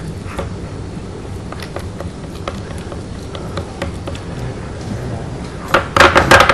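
A utensil mixing a feta and triangle-cheese filling with chopped mint in a bowl: irregular light taps and scrapes against the bowl, with a louder clatter near the end.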